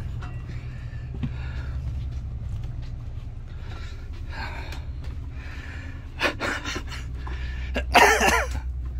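Steady low rumble of a farm tractor towing a narrowboat on a trailer, heard from inside the boat's cabin. Faint hissy sounds come and go over it, and a short loud burst stands out about eight seconds in.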